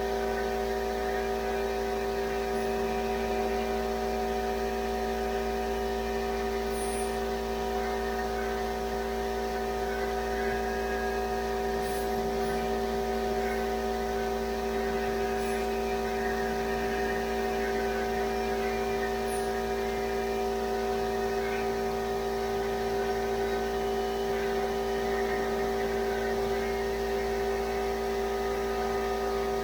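A steady machine hum made of several constant tones that never change, with a few faint, short high ticks scattered through it.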